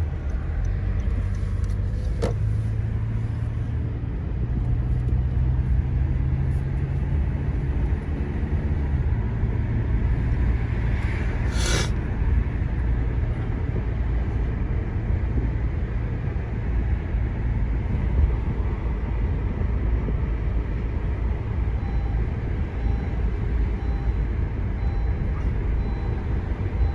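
Honda Accord being driven on newly fitted tyres with freshly done wheel alignment: steady low engine and road rumble, with a brief hiss about twelve seconds in.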